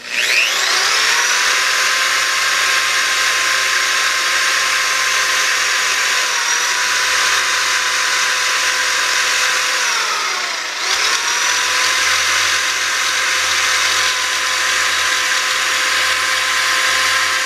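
Corded high-speed rotary tool spinning a small 120-grit sanding disc against a painted cast wheel spoke, grinding down casting marks: a steady high whine over a gritty sanding hiss. It spins up at the start, and about ten seconds in its pitch sags under load before recovering.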